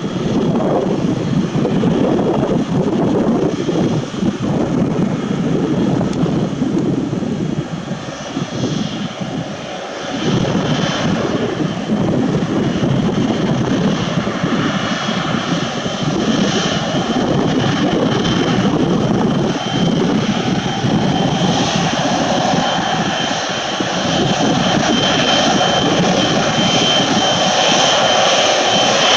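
Jet airliner's engines at takeoff thrust, a loud steady rushing rumble with a high whine that grows stronger over the last several seconds.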